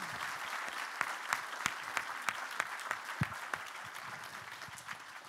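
Audience applauding, with many individual claps standing out; the applause dies away near the end.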